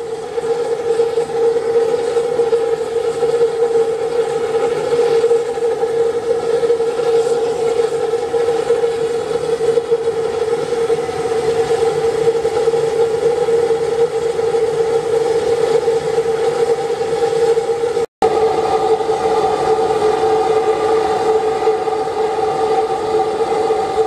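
Siphon-nozzle oil spray burner firing through a steel burner tube: a steady roar carrying a strong, even humming tone. The sound breaks off for an instant about 18 seconds in and resumes unchanged.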